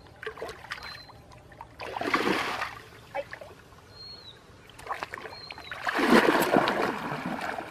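Water sloshing and splashing as a person wades through a shallow muddy pond: a short surge of splashing about two seconds in, then a longer, louder stretch of sloshing from about six seconds in as the wading speeds up.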